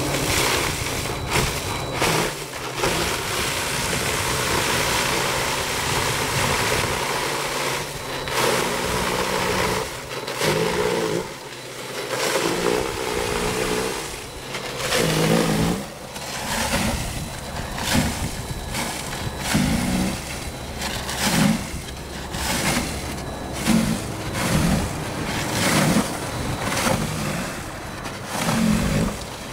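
Greenworks Pro 80V cordless electric snow shovel running and throwing snow, a steady electric motor and paddle noise. In the second half its hum rises and falls with each push into the snow, about once a second or so.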